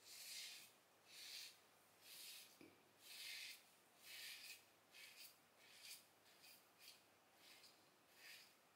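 Leaf Twig single-edge safety razor scraping through stubble on the lathered neck, against the grain: a dozen faint, short strokes, about one a second at first, then shorter and quicker. This audible blade feedback is what shavers call the blade singing.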